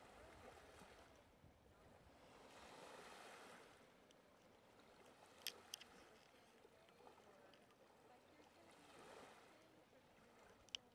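Faint small waves lapping on a sandy shore, the wash swelling and fading every few seconds. A few sharp clicks cut through it: two close together about halfway, one near the end.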